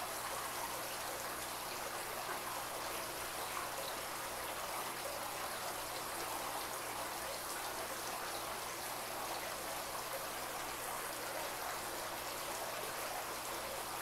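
Steady splashing and bubbling of water churned up at the surface of a tarp-lined fish pond, with a faint steady hum underneath.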